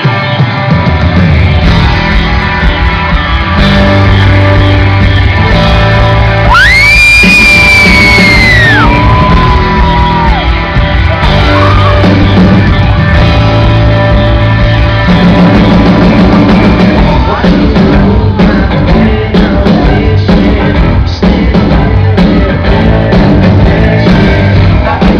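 Rock band playing live and loud, with drums, bass, guitar and singing, kicking in at once. About seven seconds in, a high held note bends up and falls away over a couple of seconds.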